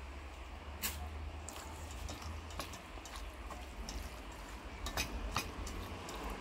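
A hand squeezes pounded ginger over raw chicken in a stainless steel bowl, then kneads the chicken pieces in the marinade. There are wet squelches and scattered light clicks of meat and fingers against the metal bowl: a sharp click about a second in and a few close together around five seconds in, over a steady low rumble.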